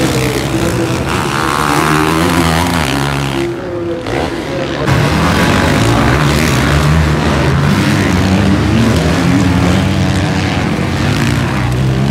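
Several motocross bikes' engines revving on a dirt track, their notes rising and falling as the riders open and close the throttle and change gear. The sound dips briefly about four seconds in, then picks up again.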